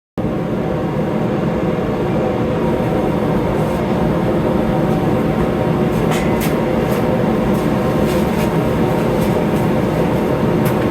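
Hammer drill running steadily as it bores a hole into stone, with a few sharp ticks over it from about six seconds in.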